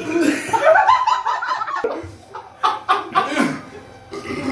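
A group of people laughing together in loud waves: a burst of laughter, a few short laughs, then another burst starting near the end.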